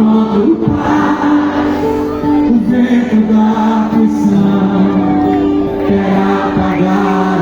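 Gospel music with singing, voices held on long sustained notes over a steady accompaniment.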